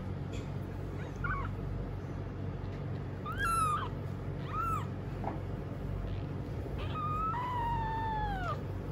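Ten-day-old kitten mewing: four thin, high-pitched mews, a faint short one about a second in, two more around three and a half and four and a half seconds, and a longer one near the end that falls in pitch as it dies away, over a steady low hum.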